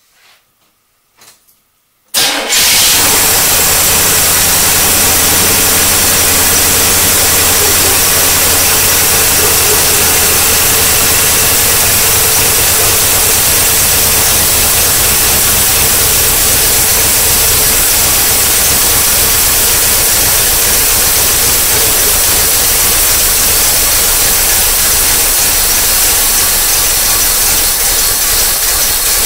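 A newly installed Blueprint crate V8 engine in a 1976 Corvette fires up on its first start about two seconds in, then runs loudly and steadily.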